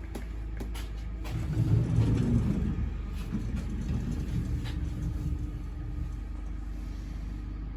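Steady low vehicle rumble, swelling louder for a second or two about a second and a half in, with a few faint clicks.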